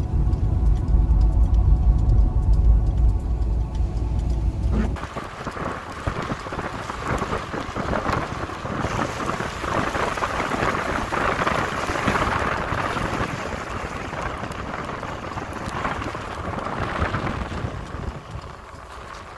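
Car cabin rumble with a steady low engine hum for about five seconds. It then gives way to a loud, even rushing hiss of rain and wet road noise, heard from a moving car on a rain-soaked road.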